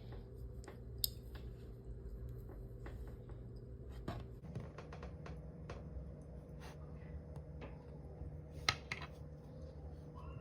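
Kinetic sand being handled: soft scraping and crumbling with scattered light clicks, two sharper ticks about a second in and again near the end, over a faint steady hum.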